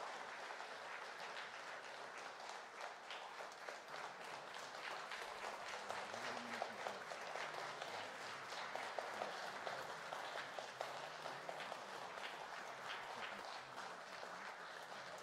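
Audience applause: many hands clapping in a steady, dense patter that holds at an even level.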